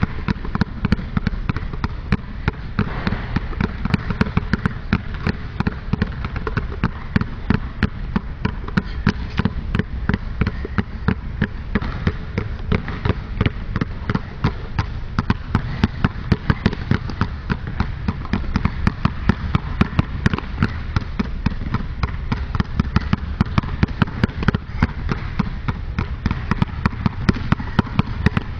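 Two balls being dribbled at once on a hardwood gym floor: quick, steady bounces, several a second, kept up without a break.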